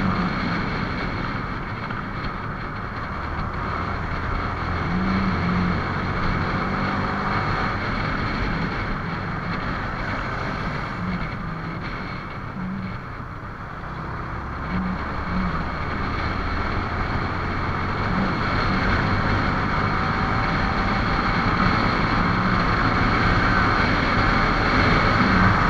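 Yamaha R15's single-cylinder engine running under way, with wind noise on the microphone. The engine eases off around the middle and builds up again towards the end.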